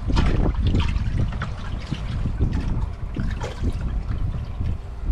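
Water splashing and dribbling as caught crappies are handled and dropped into a bucket, over a steady low rumble.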